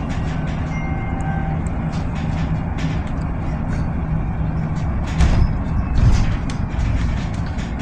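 Inside a Solaris Urbino 18 Electric articulated bus on the move: steady road and tyre rumble with a low hum from the electric drive, which stops about five seconds in. Short rattles and knocks run through it, and there are two louder thumps about five and six seconds in.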